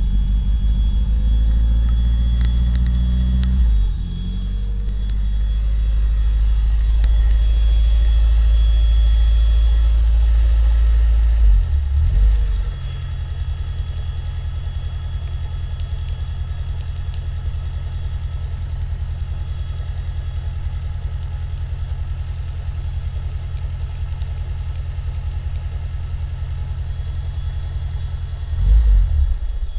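1981 Mazda 626's race-built engine (about 9.5:1 compression) running, heard from inside the cabin. It holds at raised revs for about the first twelve seconds, then drops back to a steady, evenly pulsing idle, with a brief blip of revs near the end.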